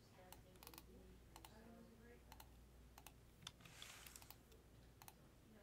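Faint, scattered keystrokes and clicks of a computer keyboard and mouse, with a brief low voice in the background about a second and a half in.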